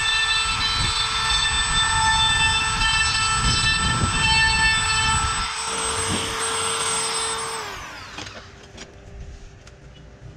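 An electric power tool's motor running with a steady high whine, switched off about seven and a half seconds in and winding down with falling pitch; a few light clicks follow.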